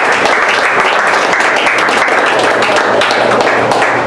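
Audience applause: many hands clapping steadily together.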